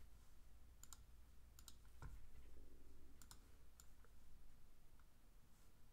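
Faint computer mouse clicks, a handful spread out with some in quick pairs, over near-silent room tone.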